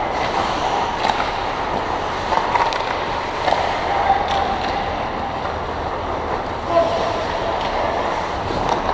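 Ice hockey game sounds in an indoor rink: a steady wash of skate blades on the ice and rink noise, with a few sharp clicks of sticks and puck.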